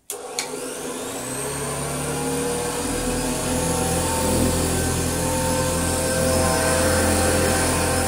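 Hoover Senior 612 upright vacuum cleaner switched on with a click, its motor spinning up in a rising whine over the first three seconds or so, then running steadily.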